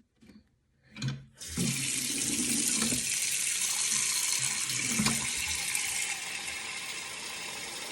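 Water running from a tap, turned on suddenly about a second and a half in and then pouring steadily, slightly softer after about six seconds.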